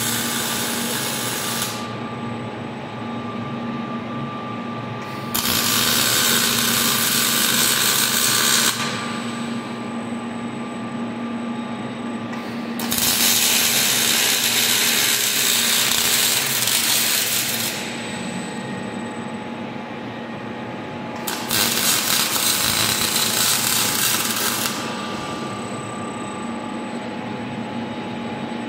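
Robotic MIG welding arc sizzling in four runs of about three to five seconds each, the first already going at the start. Between the runs, while the robot moves the torch to the next joint, only a steady machine hum and a thin high whine remain.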